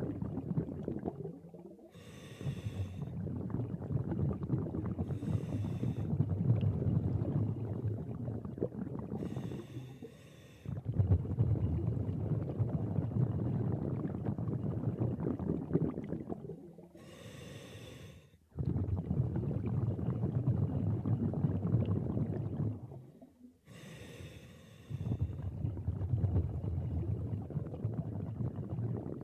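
A scuba diver breathing through a regulator underwater. Long, low bubbling exhales alternate with about five short, hissing inhales through the demand valve.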